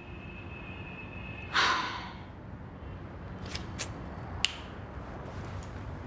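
A woman's short, breathy huff of frustration about a second and a half in, then a few faint clicks over quiet room tone.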